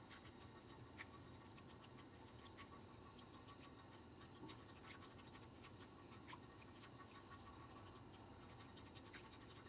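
Faint scratching of a whisk stirring a thin liquid bioresin mixture in a nonstick frying pan, with scattered soft ticks as the wires touch the pan.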